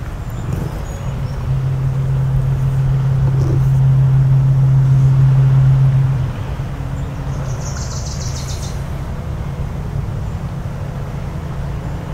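Foghorn sounding one long, low, steady blast of about four and a half seconds that cuts off sharply, over a constant low rumble. A bird gives a short rapid trill a couple of seconds after the horn stops.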